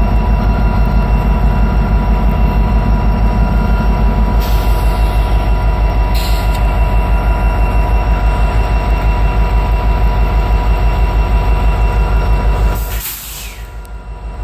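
Diesel engines of two Norfolk Southern locomotives running at close range, a heavy, fast, even throb with a steady whine over it. A hiss rises over it about four seconds in for a couple of seconds, and the sound drops away abruptly near the end.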